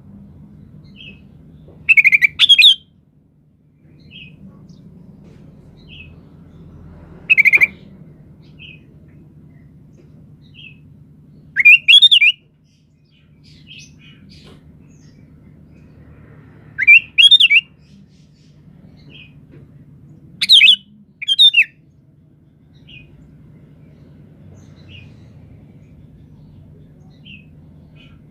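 Sooty-headed bulbul (kutilang) calling: short, loud, bubbly two-note phrases every few seconds, some doubled, with faint softer notes in between. A low steady hum runs underneath.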